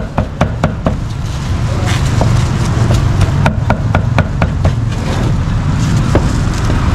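Cleaver chopping meat on a wooden block in runs of quick, even strokes, several a second, pausing and starting again. Underneath is the low rumble of passing motorbike and road traffic.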